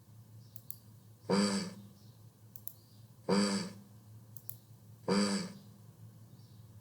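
A voice demonstrating the voiced consonant /z/ three times, each a short buzzing 'zz' of about half a second, evenly spaced. Faint clicks fall between them.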